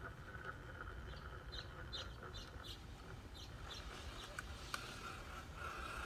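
Axial SCX10.3 RC crawler's electric motor and drivetrain whining faintly as it creeps up a rock ramp, with a run of short high chirps over it and one sharp click near the end.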